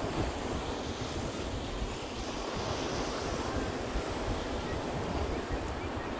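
Surf breaking and washing up a sandy beach in a steady wash of noise, with wind rumbling on the microphone.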